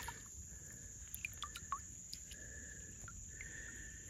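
Faint outdoor ambience: a thin insect drone that comes and goes, with a few short high chirps.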